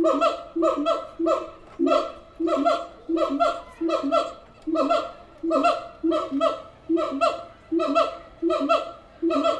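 Siamangs calling: a steady series of short, pitched barking calls, repeated about twice a second.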